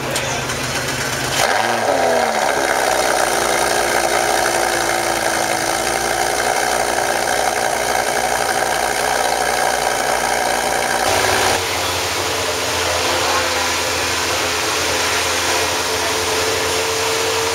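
Lamborghini Gallardo LP570-4 Performante's 5.2-litre V10 starting up about a second and a half in, flaring briefly and then settling into a steady idle.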